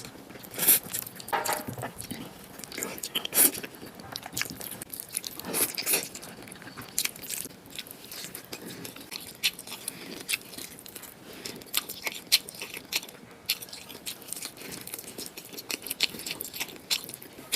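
A person eating a bowl of spicy Korean noodles: irregular chewing and biting sounds with short, sharp mouth and utensil noises.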